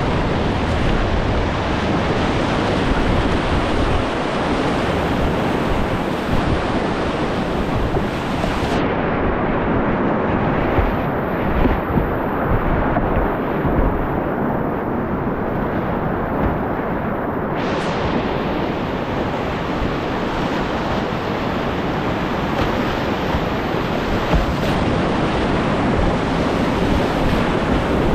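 Whitewater rapids rushing in a steady loud wash, with wind buffeting the microphone of a life-vest-mounted camera. For about nine seconds in the middle the sound turns dull and muffled, losing its hiss, then opens up again.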